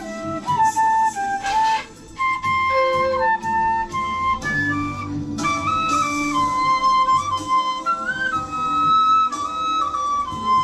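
Bamboo transverse flute playing a melody in steps of held notes, over a recorded backing track.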